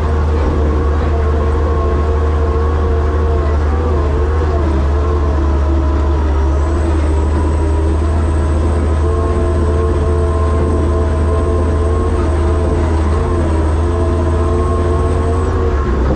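Monster truck's engine and drivetrain running under way, heard from inside the cab: a loud, steady low drone with a pitched whine above it that dips briefly twice.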